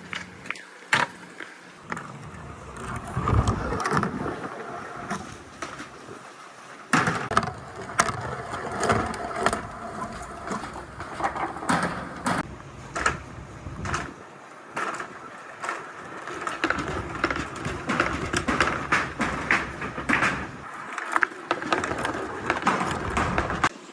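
Many balls rolling down a wooden marble-run track: a continuous rumble of rolling on wood, with a dense patter of clicks as the balls knock against each other and the track. It swells a few times and eases briefly twice.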